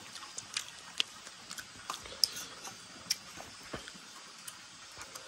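Metal spoons clicking and clinking against ceramic plates and a steel serving bowl during a meal: irregular light ticks, the loudest a short ringing clink a little after two seconds in.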